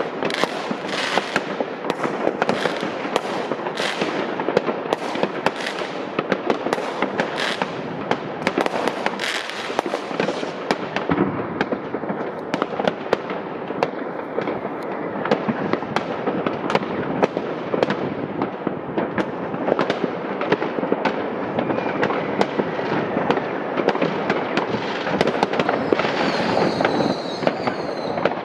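Many New Year's Eve fireworks and firecrackers going off at once all around: a dense, unbroken mix of bangs, pops and crackling from rockets and bursting shells, with a high whistle near the end.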